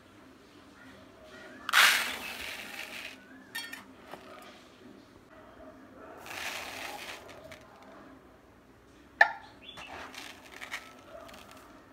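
Raw rice grains poured from a tin can into a plastic bowl: a rushing hiss about two seconds in and again about six seconds in. A sharp click follows near nine seconds, then the grains rustle as a hand stirs them.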